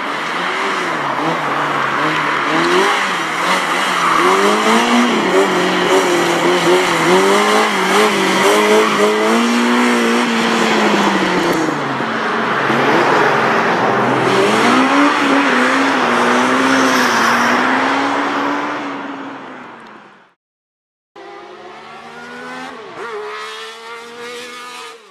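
Small classic car engines revving hard, pitch climbing and dropping again and again through gear changes and turns around the cones. About 20 seconds in the engine sound cuts out, and a second later electronic music starts.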